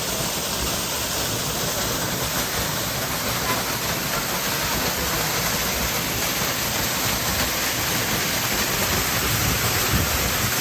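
Mountain waterfall pouring steadily, close up: a dense, even rush of water falling onto a person standing beneath it during takigyō waterfall training.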